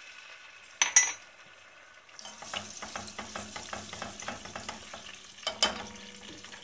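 Ginger-garlic paste frying in hot oil in a pan, sizzling while a spoon stirs and scrapes it a few strokes a second; the sizzle picks up about two seconds in. Sharp knocks on the pan about a second in and again near the end.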